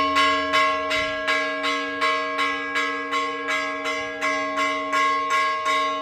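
A church bell rung in quick, even strikes, about three a second, with its ringing carrying on between the strokes.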